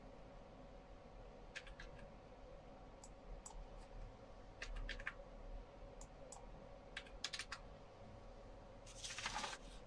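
Computer keyboard typing and mouse clicks, faint: scattered sharp clicks, some in quick pairs and threes, as numbers are keyed into a form. A short rustling noise comes near the end.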